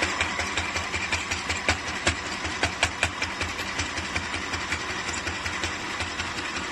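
FHSM-505 mini sewing machine running at its high speed setting, stitching with a rapid, even clatter of needle strokes over its motor hum.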